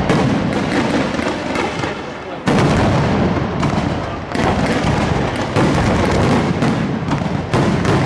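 Aerial firework shells bursting in a display: four heavy booms a second or two apart, each followed by a rumbling tail, with crackling in between.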